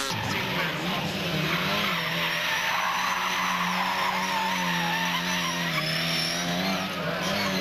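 Rally car engine held at high revs at a near-steady pitch that dips slightly and recovers, with tyres skidding and scrabbling as the car slides.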